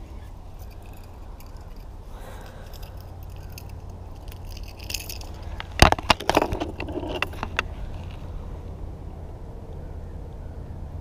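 A quick cluster of sharp clicks and knocks about six seconds in, from fishing gear and a paddle being handled against a plastic sit-on-top kayak's deck, over a steady low rumble.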